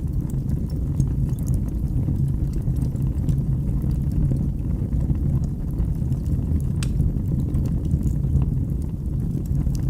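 Wood fire burning in a fireplace: a steady low rumble of flames with scattered sharp crackles, one louder pop about seven seconds in.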